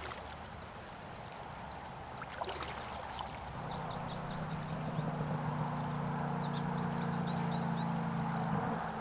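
Stream water flowing steadily. A few seconds in, a low steady hum comes in, and two short runs of high chirps sound over it.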